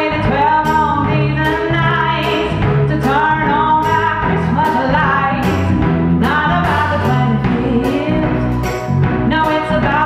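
A woman singing a slow song live over band accompaniment with a steady drum beat.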